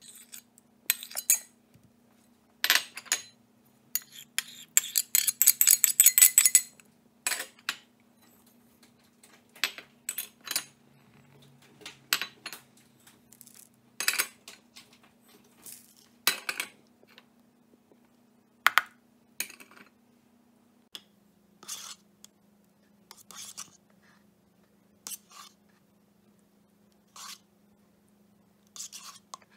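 Metal spoon clinking and scraping against small china bowls as spices and paste are spooned out and tipped onto raw chicken, in a string of separate clinks. About four seconds in there is a quick run of rapid taps for about two seconds, with a faint steady hum underneath.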